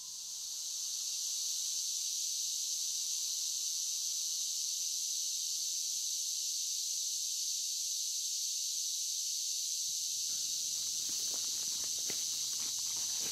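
A steady, high-pitched chorus of night insects, crickets or similar, that swells in over the first second or so. Faint low rustling and a few soft knocks come in near the end.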